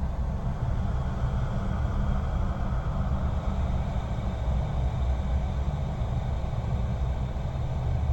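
Horror ambience sound effect: a steady low rumble with a hissing wash of noise above it, unbroken and unchanging.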